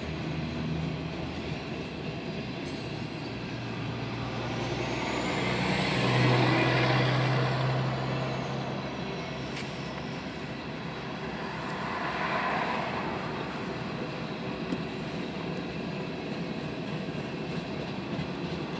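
Freight cars of a Kansas City Southern manifest train rolling steadily past. Over this, a tractor-trailer drives by close at hand: its engine hum swells to the loudest point about six seconds in and then fades. A car passes more quietly about twelve seconds in.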